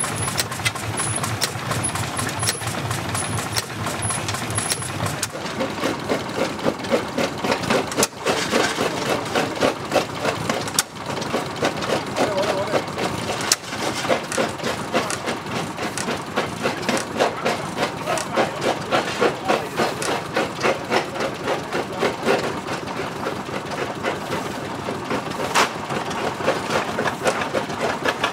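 Old stationary engines running with a regular pulsing beat of firing strokes, a few a second.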